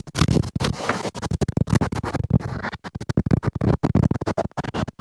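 Cyclone wind buffeting and rubbing against a handheld phone's microphone: a rapid, irregular crackling and scraping with brief dropouts.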